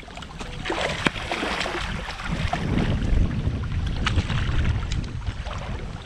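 Wind buffeting the microphone outdoors on the river, heaviest in the middle, with a few sharp light knocks and clicks of handling mixed in.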